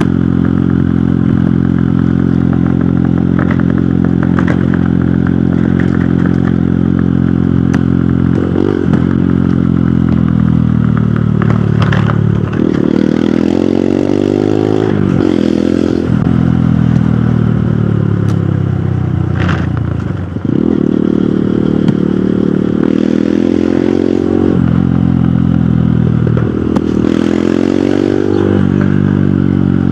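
Hero Hunk motorcycle's single-cylinder four-stroke engine running under way: a steady cruising note for about eight seconds, then the revs repeatedly fall and climb again as the throttle is rolled off and on and the gears change.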